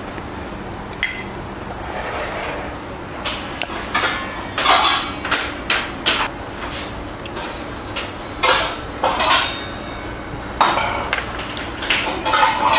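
Tableware clatter: ceramic bowls knocking on the table, a soju bottle and small glass clinking as soju is poured, and a metal spoon clinking against a bowl as rice is stirred in. The knocks and clinks come in irregular clusters, thickest in the second half.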